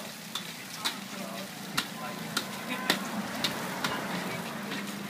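Hot oil sizzling steadily as dumplings deep-fry in a wok, with a series of sharp metal clinks from a utensil against the pans.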